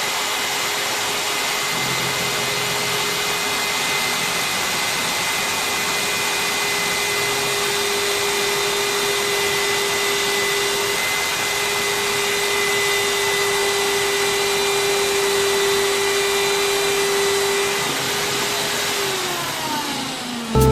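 Small brushed electric motor running steadily at high speed with a whining tone over a rushing noise, then winding down near the end.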